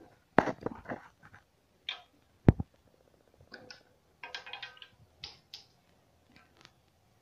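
A plastic bottle of oil being handled on a glass tabletop: crackling and clicking of the plastic and its screw cap, a sharp knock on the glass about two and a half seconds in, then more crinkling and light taps.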